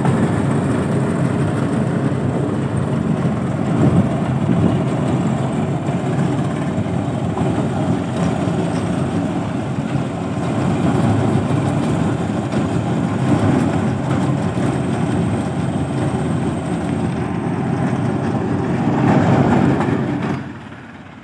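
Tractor engine running steadily under load, driving a soil loader as its conveyor throws earth into a trolley. The machine noise drops away sharply just before the end.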